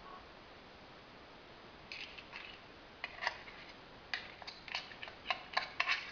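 Irregular light clicks and taps from a small metal tuna tin being handled over a ceramic salad bowl as the tuna is picked out and dropped in. They start about two seconds in, come several a second, and grow denser near the end.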